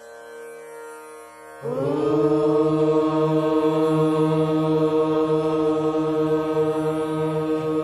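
Voices chanting in unison on one long, steadily held note, in the manner of a mantra chant. The chant comes in suddenly about a second and a half in, with a slight upward slide into pitch, over a faint steady drone that is heard before it.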